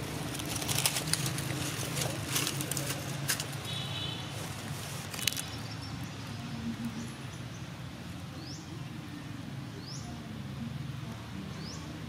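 Outdoor woodland ambience: rustling and crackling in the first few seconds, a short high call about four seconds in, then short high chirps repeating about once a second near the end, over a steady low hum.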